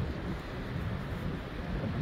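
Wind buffeting the microphone: a low rumble that rises and falls in gusts.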